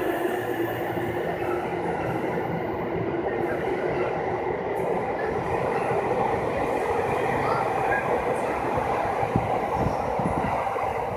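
JR Takasaki Line electric commuter train running along the station platform, a steady rumble of the moving cars with a motor hum, and wheels knocking over rail joints near the end as the last cars go by.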